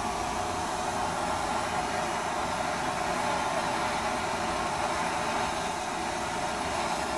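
Blowtorch flame hissing steadily.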